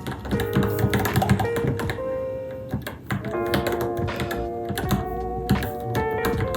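Rapid keystrokes typed on a Varmilo Minilo mechanical keyboard, a dense run of clicks with a brief pause about halfway through, over background music with sustained notes.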